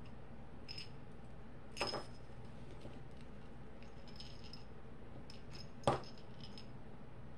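Small metal keychain parts (split ring and chain) clicking and clinking as they are handled, with scattered light ticks and two sharper clicks about two and six seconds in.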